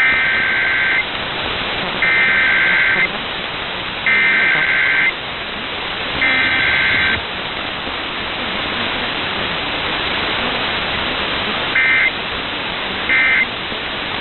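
NOAA Weather Radio SAME digital data bursts over steady radio hiss: four roughly one-second bursts of buzzy two-tone data about two seconds apart, then two much shorter bursts near the end. These are the coded alert header followed by the short end-of-message bursts.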